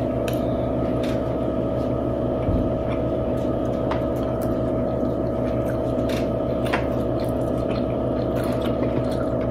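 Eating sounds: plastic forks clicking and scraping on paper plates, with chewing, over a steady electrical-sounding hum.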